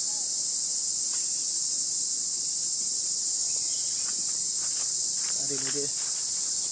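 Steady high-pitched drone of insects in the forest canopy, unchanging throughout, with a few faint brief calls or voices about five to six seconds in.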